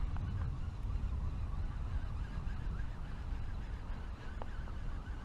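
Steady wind rumble on the microphone with a light hiss over it, and one faint click about four and a half seconds in.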